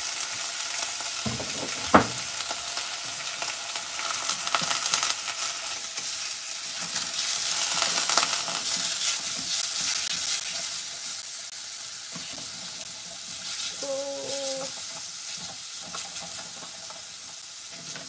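Thin slices of meat sizzling in a little rice oil in a hammered saucepan while wooden chopsticks stir and poke them. The sizzle is strongest in the middle and eases off later. There is one sharp tap about two seconds in.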